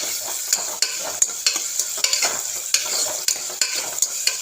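Chopped onions and shallots sizzling in hot oil in a pressure cooker, being stirred, with a spoon clicking and scraping against the pot at irregular intervals.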